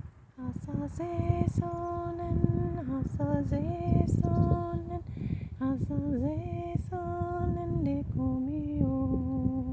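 A woman's voice singing long, wordless held notes, a second or two each, moving between a few pitches with small slides. Under the notes there is a low rumble and a few scattered clicks.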